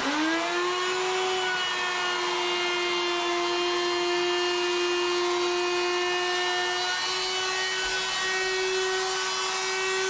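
Electric power tool motor spinning up and then running at a steady high-pitched whine, wavering slightly a couple of times as it works the material.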